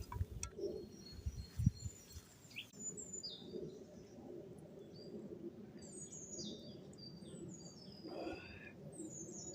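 Small songbirds singing, with many quick high chirps and falling trills from about three seconds in. In the first two seconds there is a low rumble with a few dull thumps, the loudest a little under two seconds in.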